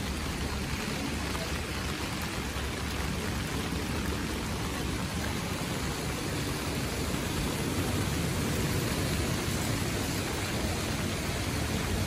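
Steady rushing hiss of water, even and unbroken.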